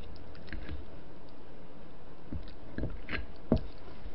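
A person chewing a mouthful of braised seafood and rice, with several short wet mouth smacks through the chewing.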